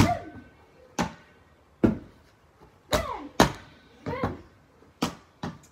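A large inflated clear ball being kicked and kneed up again and again, giving a string of sharp thumps about once or twice a second.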